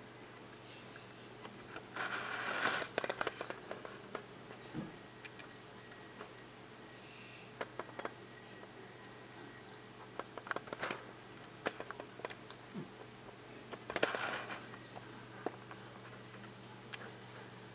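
A Norwegian forest cat moving close to the microphone: two short rustling bursts, about two seconds in and again near the end, and scattered light clicks, over a steady low hum.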